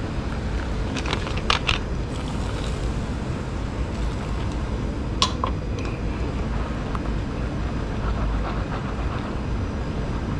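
Tempura batter of tempura powder and soda water being stirred with plastic chopsticks in a plastic bowl: a few sharp clicks and light taps over a steady low background rumble.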